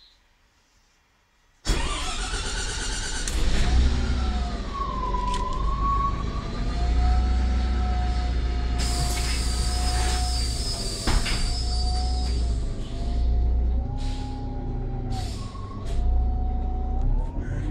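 Irisbus Citelis natural-gas city bus heard from inside the passenger cabin while driving: a steady low engine rumble with a whine that rises and falls in pitch, and scattered rattles and knocks. The sound cuts in suddenly after a second and a half of near silence, and a few short hisses come near the end.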